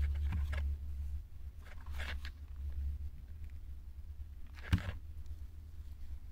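Soft rustling as the crocheted yarn flower and a hot glue gun are handled, over a low steady hum. A single sharp knock comes about three-quarters of the way through.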